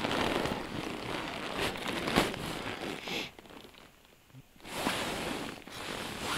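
Rustling and crackling of clothing and gear being handled, with a few sharp clicks. It drops almost to silence for about a second and a half past the middle, then resumes.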